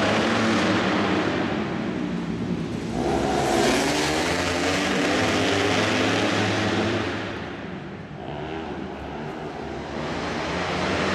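Racing motorcycle engines running hard as a pack of flat-track bikes goes past, swelling and fading. The sound dips about eight seconds in and builds again near the end.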